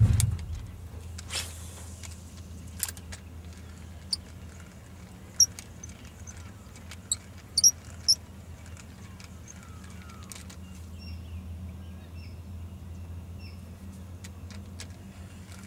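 Lakeside ambience: scattered short bird chirps and small repeated calls over a steady low rumble, with a brief rush of noise about a second and a half in.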